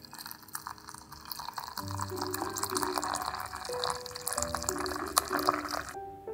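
Water poured in a thin stream into a glass teapot, splashing onto loose tea leaves in a mesh strainer. The pour cuts off suddenly near the end.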